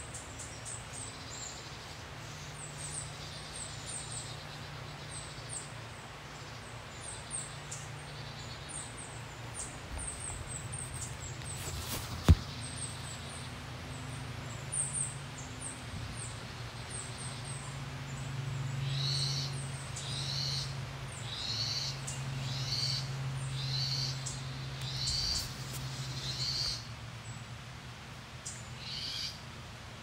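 Birds calling: high chirps throughout, then a run of repeated calls about once a second in the second half, over a low steady hum. A single sharp click sounds about twelve seconds in.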